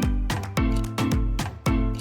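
Background music with a steady upbeat beat, about two strong bass hits a second, over pitched instrument notes.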